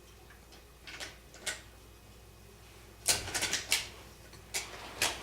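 Hard toy train pieces clicking and clacking together as they are handled: two light clicks, then a quick rattle of louder clacks about three seconds in, and two more near the end.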